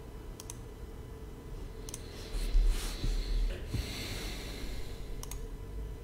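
A person's heavy breath close to the microphone, a hissing exhale or sniff lasting about two seconds around the middle, with a low thump at its start. A few single sharp clicks come before and after it.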